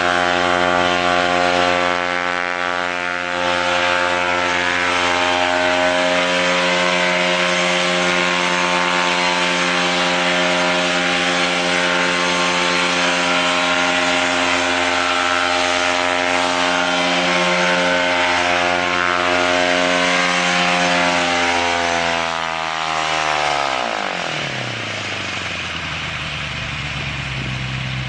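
Small engines on a homemade flying platform running steadily at high speed, then dropping steeply in pitch and volume about 22 seconds in as they slow down, settling to a lower, quieter idle.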